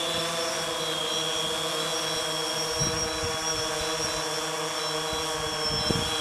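DJI Phantom 3 Standard quadcopter's propellers and brushless motors whining steadily as it descends under automatic return-to-home. Two brief low thumps come about three seconds and six seconds in.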